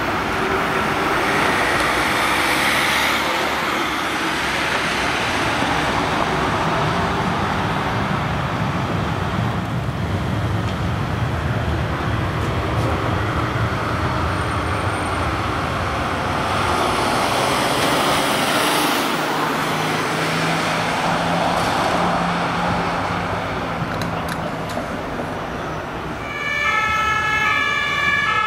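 Emergency vehicles and traffic driving past, tyre and engine noise swelling as each goes by. About two seconds before the end, an ambulance's German two-tone siren (Martinshorn) starts, alternating steadily between a high and a low note.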